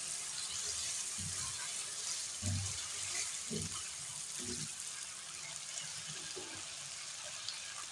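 Chicken pieces sizzling in oil in a nonstick pan, a steady hiss, with a few soft low thuds as a silicone spatula stirs them.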